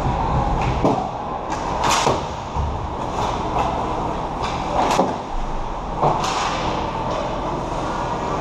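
Ice hockey play close to the goal: skates scraping the ice over a steady rink noise, with about six sharp clacks and knocks from sticks, puck and boards, the loudest about two, five and six seconds in.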